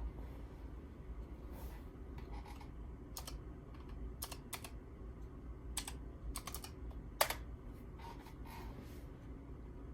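Plastic speed cube being turned by hand: irregular sharp clicks and clacks, some single and some in quick runs, like typing.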